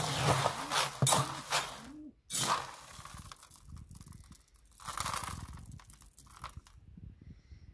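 Mixed pigeon grain being stirred and scooped in a plastic tub as oil and supplement powder are worked into the seeds: dense rustling and crunching of the seed, loudest in the first two seconds, with shorter rushes a little later as a metal scoop digs in.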